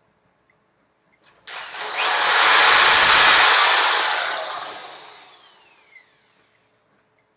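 Electric drill with a 9/64-inch bit drilling through the tripod's brace, one side at a time. The drill starts about a second and a half in with a high whine that climbs quickly, holds, then slides steadily down as the motor winds to a stop. A small click follows near the end.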